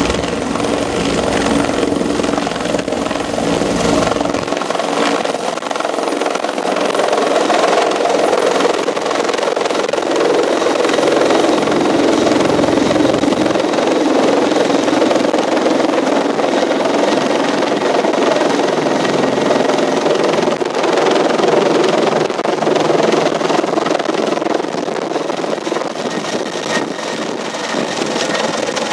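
Rescue helicopter lifting off and climbing away overhead, its rotor and turbine engines running loud and steady. A deep rotor rumble is heaviest in the first few seconds and again a little before halfway.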